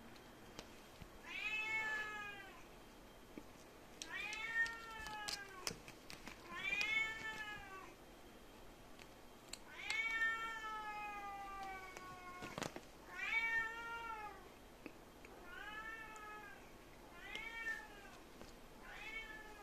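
Kitten meowing again and again: about eight high meows, each rising then falling in pitch, with one long, drawn-out meow sliding down about ten seconds in.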